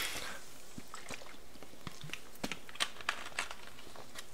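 Faint gulping and swallowing close to the microphone, soft scattered mouth and throat clicks as a drink is knocked back.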